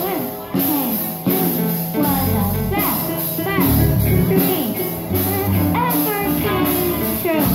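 A children's rock band playing live: electric keyboard, bass guitar and drums with a steady cymbal beat, and a sung vocal line over the top.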